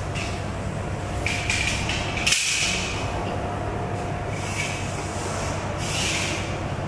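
Chalk scraping on a blackboard in a series of short strokes, over a steady low hum.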